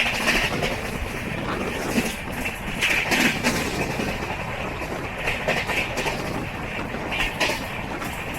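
Passenger coach of an express train running along the track, heard from inside: a steady rumble and rattle with irregular clacks from the wheels and couplings.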